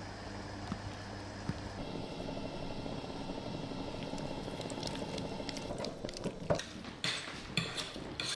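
Steady kitchen cooking noise with a low hum, broken by a few sharp clinks and knocks of utensils or cookware near the end.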